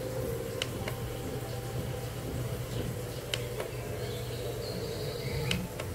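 A Feather the Owl diffuser's built-in sound mode playing through its small speaker: sparse chirps and clicks over a steady low hum.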